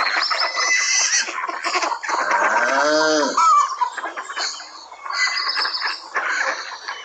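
Farmyard chorus of chickens clucking and small birds chirping, with one long call from a larger animal that rises and falls in pitch about two seconds in.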